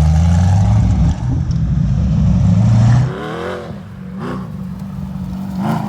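Sandrail's 6.0-litre LS V8 engine running loud under throttle, its pitch climbing, then dropping away sharply about three seconds in. Quieter rising-and-falling tones follow.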